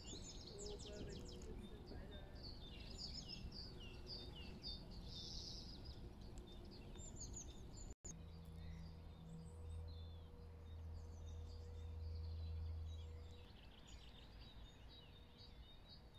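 Small birds singing and calling outdoors, faint, with a run of repeated short falling notes in the first half. After a break about halfway, a low steady hum joins for about five seconds, then fades.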